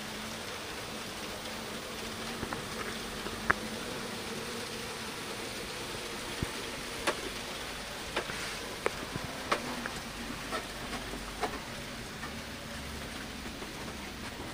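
Z scale model train running on the layout: a faint steady buzzing hum from the tiny locomotive motors that fades about halfway through, with scattered light clicks and ticks.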